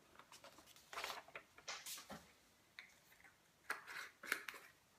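Faint rustling of folded scrap paper and a few soft handling sounds as excess embossing powder is tipped back into its pot, in short bursts about a second in, around two seconds in and near the end.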